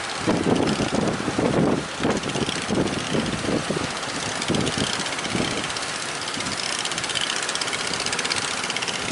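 A speedboat's outboard engine running, mixed with rushing wind and water noise. The sound is uneven and surging in the first half, then settles into a steady run.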